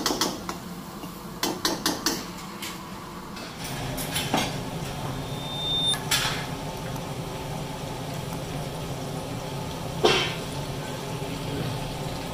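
Chicken pieces frying in hot oil in a steel karahi, a steady frying hiss, broken by sharp metal clanks against the pan: a quick cluster in the first two seconds, single ones a few seconds apart, and the loudest about ten seconds in.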